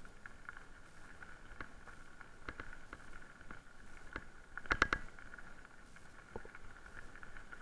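Electric mountain bike rolling on a gravel road: tyres crunching over loose stones, with scattered ticks and rattles from the bike and a quick cluster of louder knocks about five seconds in. Under it runs a steady high whine, typical of the e-bike's mid-drive motor assisting.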